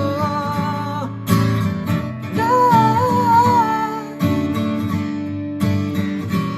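Acoustic guitar strumming chords in a song's closing bars, with a man's voice holding a wavering note for about a second and a half midway.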